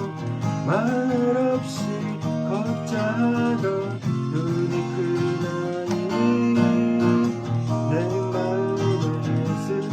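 Acoustic guitar strummed and picked, with a voice singing along in places.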